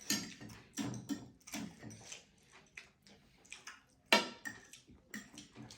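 Eating sounds at a shared meal: scattered short clicks and clinks of utensils against dishes, the sharpest about four seconds in.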